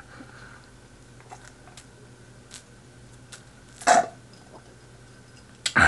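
A person chewing food, with faint scattered mouth clicks, one louder short mouth sound about four seconds in, and another loud sound starting near the end.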